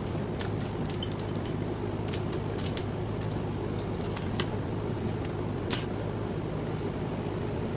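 Light metal clinks and jangles as a gear puller's jaws and bolt are fitted over the bearing on an electric motor's rotor shaft, a scattering of short clicks over a steady low hum.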